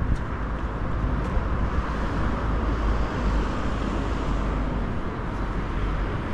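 Steady city street traffic noise: cars on the road alongside, an even, unbroken hum with no single event standing out.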